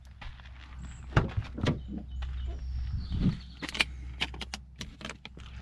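Gear being handled: an irregular string of knocks, clicks and rattles, the sharpest a knock about a second in.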